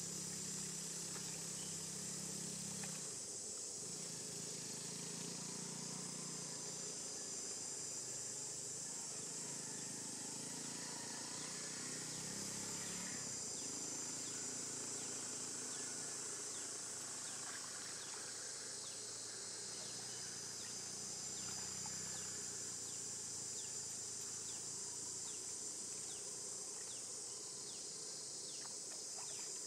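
A steady, high-pitched chorus of insects buzzing without a break.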